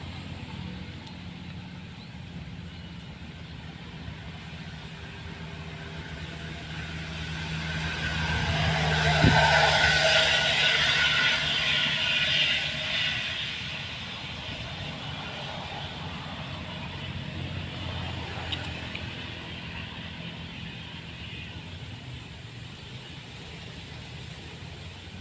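Road traffic: a vehicle passes close by, growing louder to a peak about ten seconds in and fading away a few seconds later, over a steady low engine hum.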